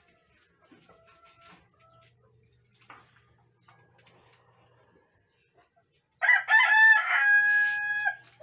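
A rooster crowing once, about six seconds in: a loud call of about two seconds that ends on a long held note.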